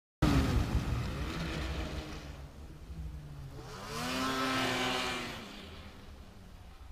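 Arctic Cat XF 6000 CrossTrek snowmobile's 600cc two-stroke twin engine running as the sled pulls away. It cuts in suddenly at its loudest and fades. About four seconds in it revs up and back down in a second swell, then fades again into the distance.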